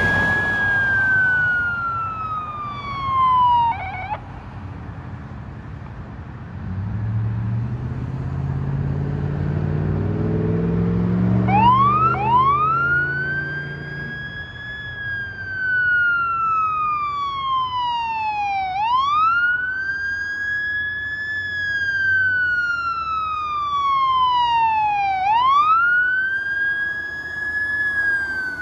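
Fire engine siren on a slow wail. One falling sweep cuts off about four seconds in, then a heavy engine revs up as the truck accelerates. The siren starts again about halfway through, rising and falling about every six and a half seconds.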